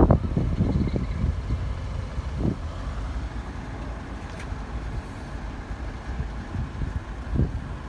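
Steady, low diesel engine rumble that slowly fades, with a couple of soft knocks.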